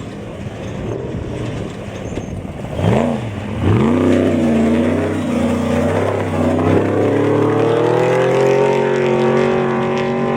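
Off-road race truck engine revving hard. About three seconds in, its pitch swoops up and back down, then the engine gets louder and climbs in pitch, wavering at first, and holds high near the end.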